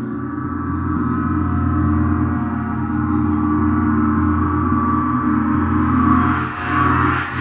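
Large gongs ringing on in a sustained, shimmering wash of many overlapping tones over a deep drone, growing louder over the first couple of seconds and wavering briefly near the end.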